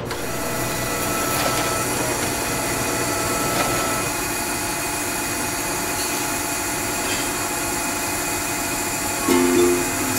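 Engine lathe running under cut, its tool facing a metal gear blank and throwing off curled chips: a steady machining noise with a thin steady whine in the first few seconds.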